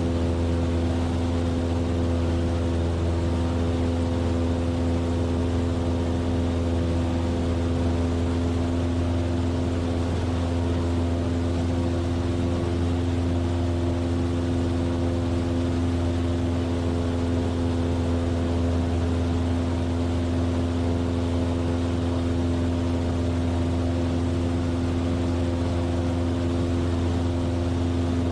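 Cessna 172F's six-cylinder Continental O-300 engine and propeller running at a steady power in flight: a constant low drone with a few steady overtones and no change in pitch.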